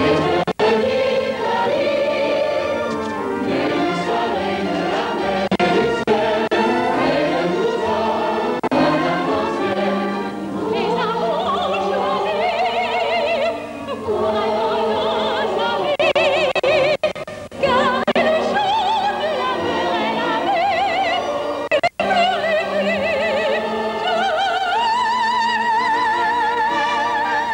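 Operetta chorus and soloists singing, the voices with strong vibrato. Near the end a high note is held for a few seconds.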